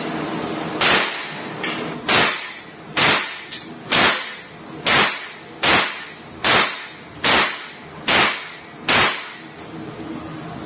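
Auto-Ordnance Thompson T1-14 .45 ACP carbine fired shot by shot: ten gunshots about a second apart, each echoing in an indoor range.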